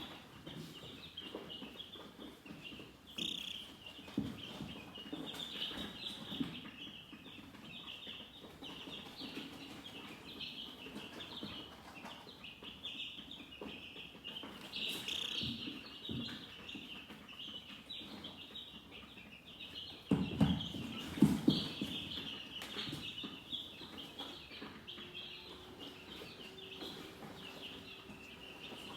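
Chickens chirping continuously in a dense, high-pitched chorus, with a short run of louder, lower sounds about two-thirds of the way through.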